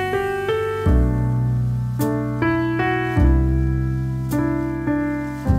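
Background music: a piano playing a melody and chords over deep bass notes, with a crisp hit about every two seconds.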